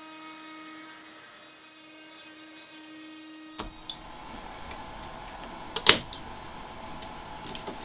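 Makita trim router on a CNC running with a steady hum while it cuts oak. About three and a half seconds in this gives way to sharp clicks and knocks as a hand tool is worked on the carved oak board, with one loud click near the six-second mark.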